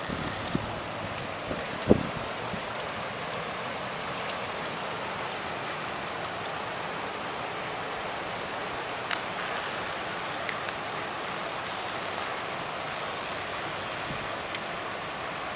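Heavy wind-driven rain pouring down in a steady hiss, with a few close taps, the loudest about two seconds in.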